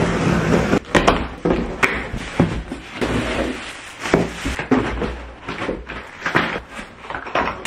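An office chair being unpacked from its cardboard box: scissors cutting and scraping the box, the cardboard and plastic wrapping rustling, and irregular knocks and clacks as the plastic chair parts are handled.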